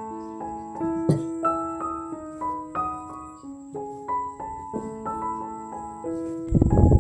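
Background music: a gentle piano melody of sustained single notes. Near the end a louder, noisy burst sounds over it.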